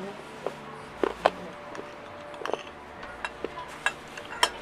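Cutlery clinking against plates while eating: about a dozen sharp clinks at irregular intervals, a few ringing briefly.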